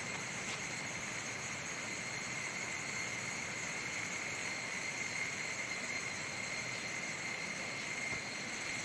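Steady insect chorus in the forest, several high shrill tones held constant, over an even rush of flowing water.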